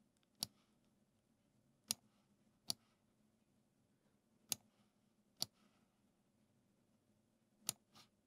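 Computer mouse button clicking: seven short, sharp clicks at uneven intervals, pressed and released as nodes are dragged and dropped in a patch editor.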